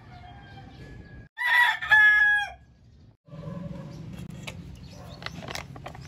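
A rooster crowing once, loudly, starting about a second in and dropping in pitch at the end. Before it fainter calls, and after it a low steady hum with scattered clicks.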